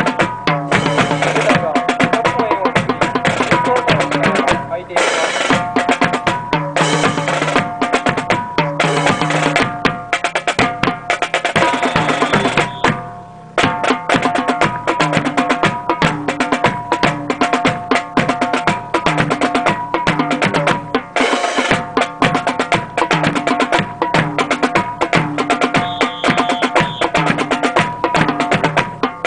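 March music with drums keeping a steady beat to accompany the marching drill, with held tones over the rhythm; the sound drops out briefly about thirteen seconds in.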